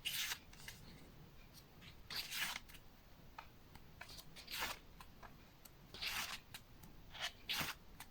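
Pages of a small photo flipbook being turned one at a time: five soft papery swishes, one every one and a half to two seconds, with a few light clicks of handling between them.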